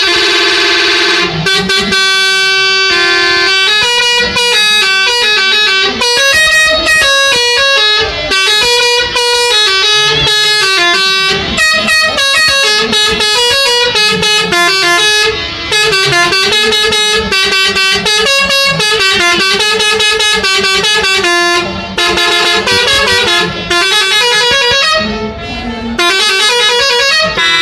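Bus 'telolet' musical air horns playing a quick melody, a run of pitched horn notes stepping up and down several times a second, with a few brief breaks.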